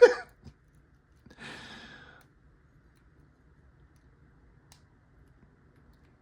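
A man's long breathy sigh about a second and a half in, followed by quiet with one faint small click.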